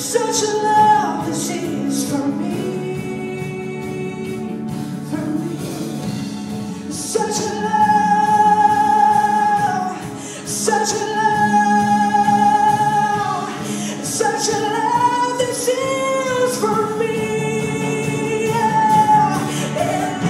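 Christian song: a singer holding long, wavering notes over steady instrumental backing.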